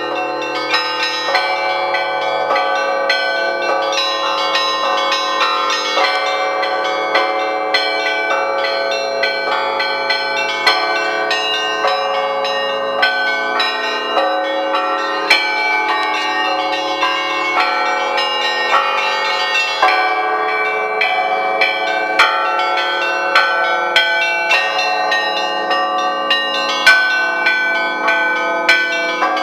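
Russian Orthodox church bells rung by hand from ropes in a festive peal. Many bells of different sizes are struck in a quick, overlapping rhythm, several strokes a second, each ringing on under the next.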